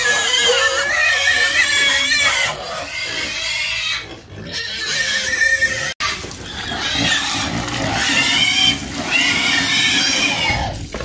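Pigs squealing: long, high-pitched, wavering cries, one after another, with a brief break about six seconds in.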